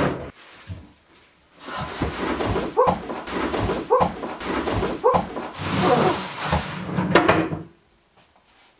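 A single knock, then several seconds of wood scraping with short squeaks about once a second, from an unfinished pine chest of drawers being handled.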